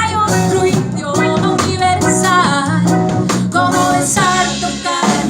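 Music: a pop song with guitar and drum-kit backing and a gliding melodic lead line.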